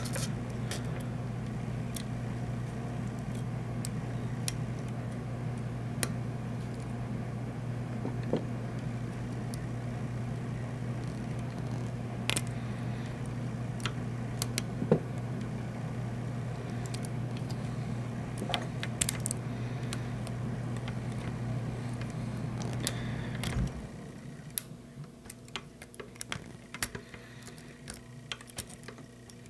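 Sparse light metallic clicks and scrapes of a lock pick and tension wrench single-pin picking an old US government Eagle padlock, over a steady low hum that cuts out about 24 seconds in.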